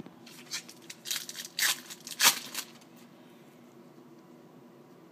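Crinkling and tearing of a trading-card pack wrapper being handled and opened: a quick run of short rustles for about two and a half seconds, then quieter.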